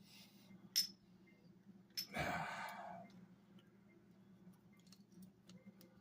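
Faint metal clicks of a piston tool against a motorcycle brake caliper as the piston is turned in, with a breathy sigh about two seconds in.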